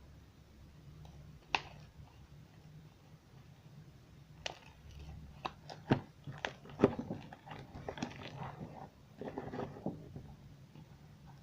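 Slime being squeezed and pressed by hand, making sharp pops and clicks that come thick and fast in the middle, then a run of wet crackling.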